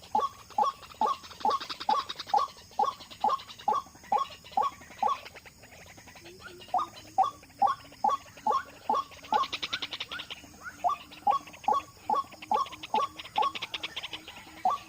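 White-breasted waterhen calling: a short 'kwak' note repeated about two to three times a second, breaking off briefly about six seconds in and then resuming. A fast, higher-pitched rattle rises behind it in places.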